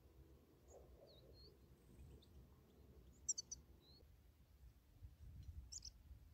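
European goldfinches giving brief high chirping calls, a few scattered notes with the loudest a quick cluster about three seconds in and another shortly before the end, over a faint low rumble.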